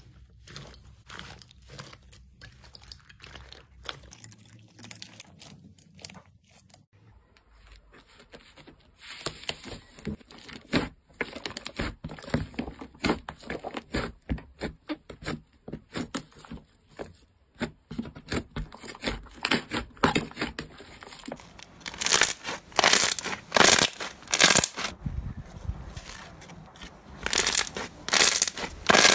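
Hands squeezing, pressing and kneading slime, making rapid runs of small pops and crackles as air pockets burst. The sounds are faint and sparse at first, get busier after several seconds, and are loudest in bursts near the end.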